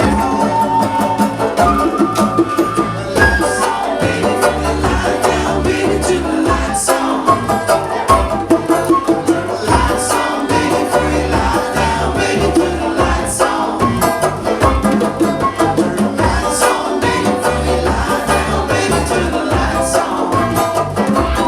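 Live band playing an acoustic set, with a steady repeating bass line and beat under the instruments.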